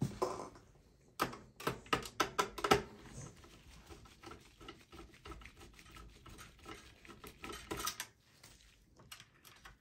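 Small metallic clicks and taps of a Phillips screwdriver and gloved hand working inside a desktop PC case, undoing motherboard screws. There is a quick run of sharp clicks about a second in, fainter ticking after it, and another cluster of clicks near the end.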